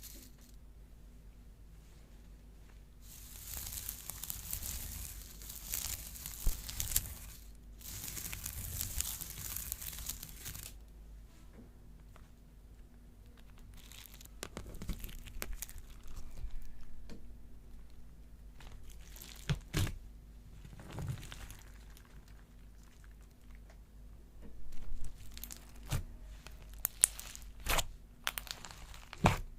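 Slime being squeezed and pulled apart close to the microphone, crinkling and crackling. Two long stretches of crinkling come first, then scattered sharp pops and snaps that get busier near the end.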